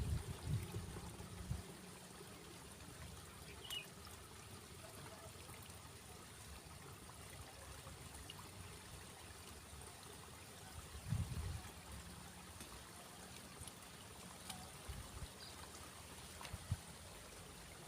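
Faint, steady trickle of running water, with a few low thumps near the start and again about eleven seconds in.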